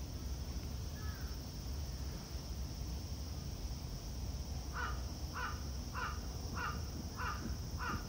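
A crow cawing six times in a quick, even series in the second half, over a steady low outdoor rumble.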